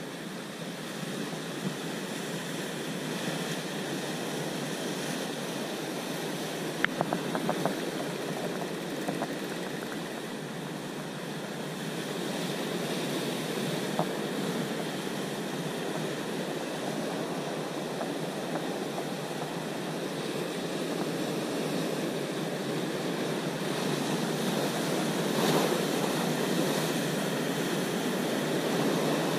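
Surf breaking and washing over rocks: a steady rushing, swelling a little near the end. A few sharp clicks stand out about a quarter of the way in.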